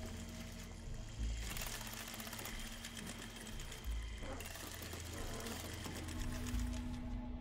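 Rapid mechanical clicking and clattering, like clockwork machinery, from a TV episode's soundtrack, over a low held music drone. The clatter is densest from about a second in to about four and a half seconds.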